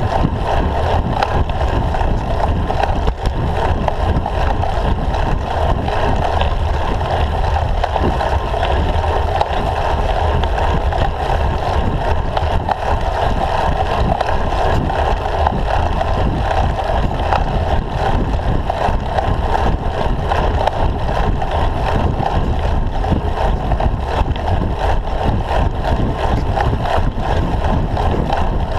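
Steady wind noise on a handlebar-mounted camera's microphone, mixed with road rumble and vibration from a road bicycle riding uphill.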